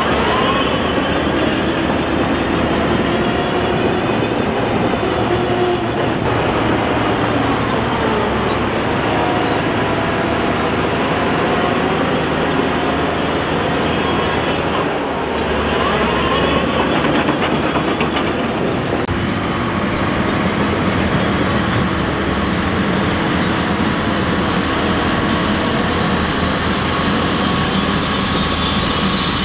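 Heavy diesel earthmoving machinery working, its engine pitch rising and falling under changing load, then settling into a steadier note about two-thirds of the way in.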